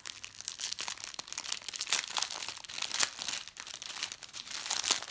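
Plastic packaging of a diamond painting kit's drill bags crinkling and crackling irregularly as it is handled and opened.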